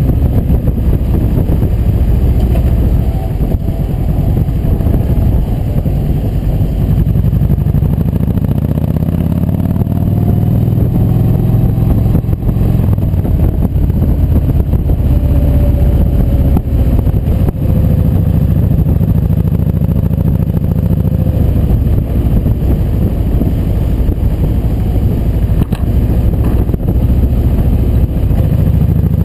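Motorcycle's V-twin engine running at road speed, heard from the bike's own camera with wind rushing over the microphone. The engine note climbs a little about a third of the way in and eases back later.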